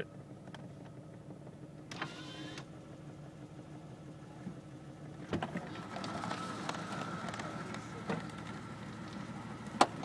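2000 Jeep Cherokee XJ engine idling rough, heard from inside the cabin: the cylinder 3 misfire that sets in after a heat soak. A few sharp clicks break in over the steady hum.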